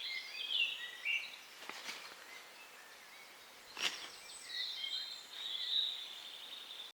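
Woodland birdsong: several birds singing overlapping warbling phrases, with a single sharp click a little under four seconds in. The sound cuts off abruptly just before the end.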